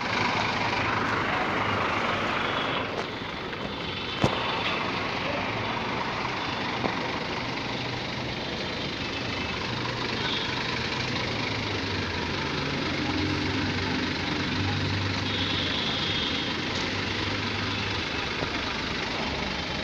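Scania K360 bus diesel engine running steadily at low speed, with a sharp click about four seconds in.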